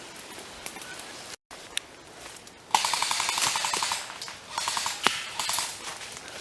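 Airsoft guns firing on full auto: a burst of rapid, evenly spaced shots, about a dozen a second, lasting just over a second. Two shorter bursts and a single sharp crack follow.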